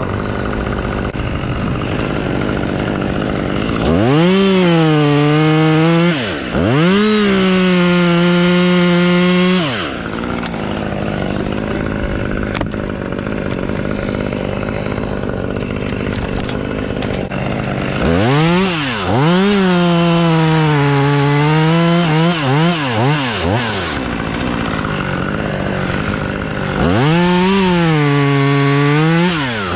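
Chainsaw idling, then revving up to full throttle and cutting wood, about four seconds in, again from around eighteen seconds, and near the end. Between cuts it drops back to idle, with a few quick throttle blips just before it settles around twenty-three seconds.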